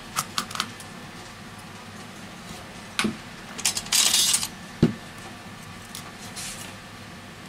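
Metal tweezers clicking and scraping against the small metal connector cover inside a smartphone as it is pried up and lifted off: a few sharp clicks at the start, a scratchy scrape about four seconds in, then a single knock.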